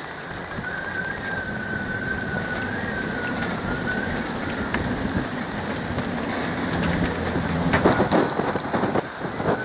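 Strong wind buffeting the microphone, with the thin, wavering whine of a firefighting aircraft's engines in the distance for the first few seconds. The wind noise builds to crackling gusts about eight seconds in.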